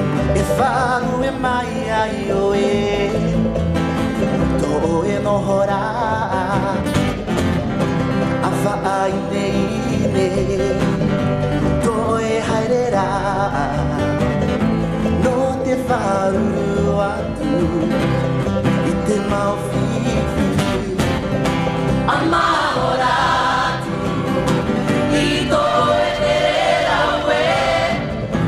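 Live band music: a man singing a melody over strummed acoustic guitar and other plucked string instruments, playing without a break.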